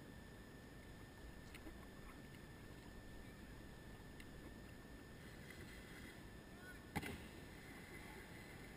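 Near silence: a faint steady hiss, with one sharp click or knock about seven seconds in.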